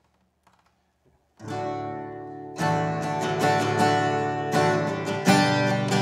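Steel-string acoustic guitar: after a moment of near silence, a first chord is struck about a second and a half in and left ringing, then strummed chords follow, the opening of a praise song.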